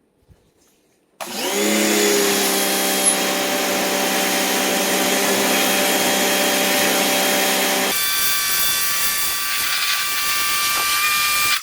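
Sun Joe SPX2004 electric pressure washer starting up, its motor whine rising briefly as it spins up, then running steadily under the hiss of the high-pressure jet from the adjustable nozzle set to its sharpest stream. About two-thirds of the way in the low motor hum drops out and a higher whine carries on with the spray. Both stop suddenly near the end.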